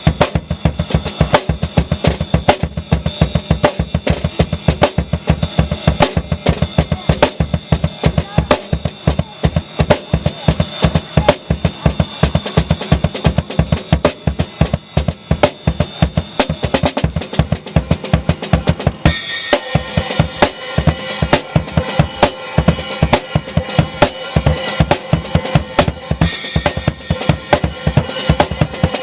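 Acoustic drum kit played fast and dense, with bass drum, snare and cymbals. About two-thirds of the way through, the bass drum drops back and the cymbals ring more steadily over the strokes.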